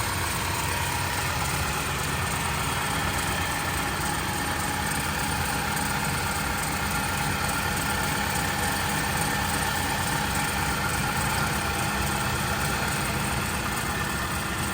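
Engine idling steadily, with an unchanging running noise; the owner finds it excessively noisy since the frame was changed.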